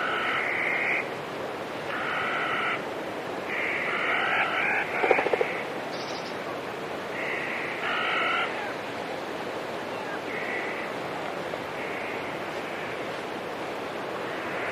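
Repeated short calls, each half a second to a second long at two or three pitches, recurring every second or two over a steady rush of water. A brief rapid rattle about five seconds in is the loudest moment.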